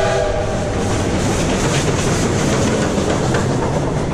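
A steam locomotive's chord whistle tails off in the first half-second, then a train's steady rumble and wheel clatter as it crosses a steel girder bridge.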